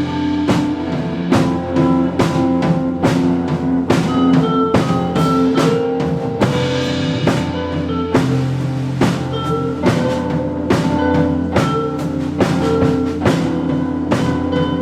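Live rock band playing an instrumental passage: a drum kit keeps a steady beat, about two to three hits a second, under held, changing notes from the other instruments.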